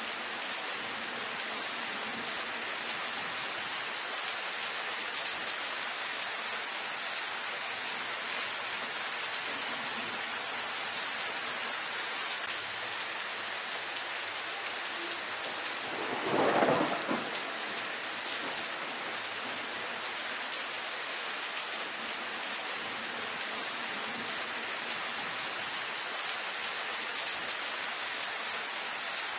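Steady rain falling on dense leafy foliage, an even hiss. A little past halfway, one brief louder sound swells and fades over about a second.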